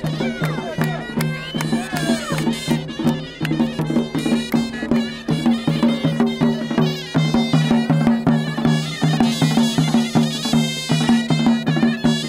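Traditional folk music: a wind instrument playing a melody over a steady, quick drum beat, with held low tones pulsing in time.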